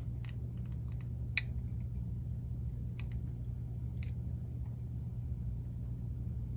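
A handful of small, sharp clicks and taps as a cassette deck's capstan motor is handled and turned in the fingers, the clearest about a second and a half in, over a steady low hum.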